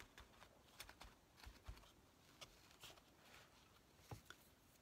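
Near silence with faint, scattered light taps and rustles: paper and craft trims being handled on a journal page.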